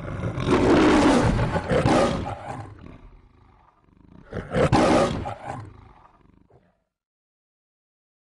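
The MGM lion's trademark roar: a lion roaring twice, a long roar of about three seconds and then a shorter one about four seconds in, dying away.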